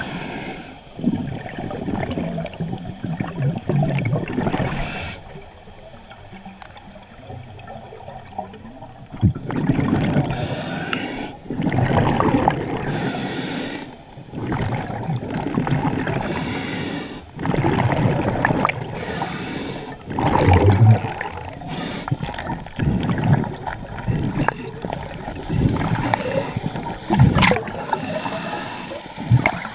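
Scuba diver breathing underwater through a regulator: surges of exhaled bubbles gurgling past the microphone, alternating with hissing breaths every couple of seconds, with a quieter pause partway through.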